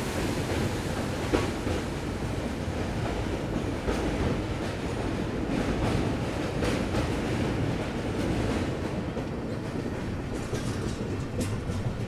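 A passenger train running at speed, heard from beside a coach while it crosses a river bridge: a steady rumble of wheels on the rails with scattered clacks from the rail joints.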